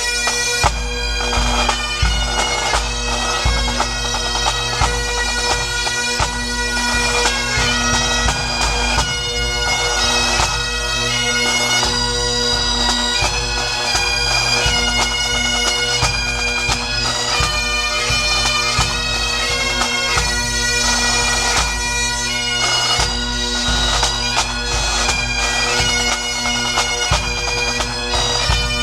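Music played on a droning wind instrument: steady held drone notes under a melody that changes pitch every fraction of a second, continuing without a break.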